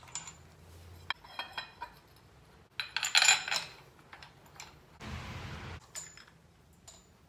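Steel cam timing gear clinking and tapping against the LS3 camshaft nose and the iron engine block as it is fitted by hand. A louder cluster of metallic clinks comes about three seconds in, and a brief rustle follows about two seconds later.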